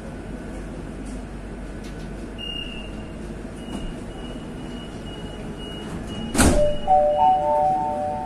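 Madrid Metro train standing at a platform sounding its door-closing warning: a high beep repeated for about five seconds, a loud burst as the doors shut about six seconds in, then a three-note chime that comes before the next-station announcement.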